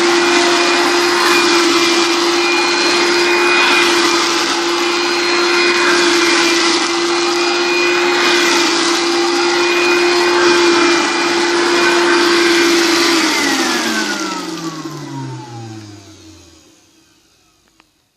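1986 Hoover Dustette S1122 handheld vacuum running with a steady motor whine. It is switched off about 13 seconds in, and the motor winds down, its pitch falling and fading over a few seconds.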